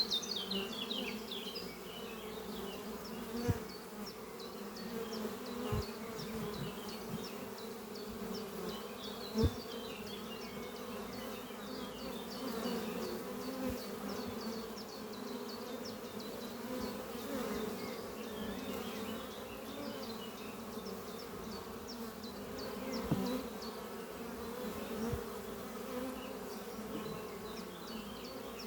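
Many honey bees flying in and out of a hive entrance, a steady buzzing hum with individual bees passing close by. A few brief knocks come through now and then.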